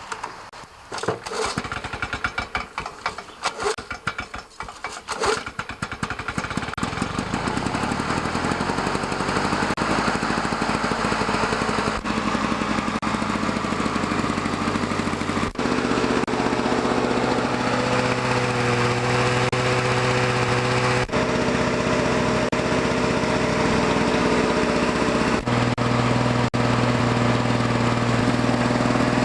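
An older Lawn-Boy 19-inch two-stroke push mower engine starting. It fires unevenly and sputters for the first five or six seconds, then catches and settles into a steady run. The engine has been repaired after a hardened primer-to-carburettor line was leaking air and the carburettor was dirty.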